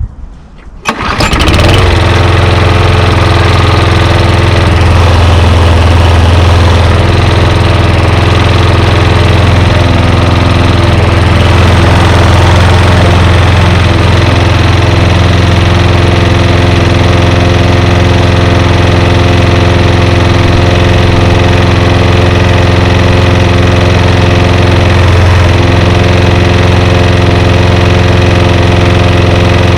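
Toro Super Recycler lawn mower's Briggs & Stratton Quantum single-cylinder engine pull-started, catching about a second in, then running steadily.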